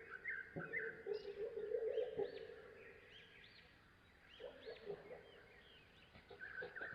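Bird calls: a low, pulsing call from about half a second to two and a half seconds in, and again briefly around four and a half seconds, under many short high chirps.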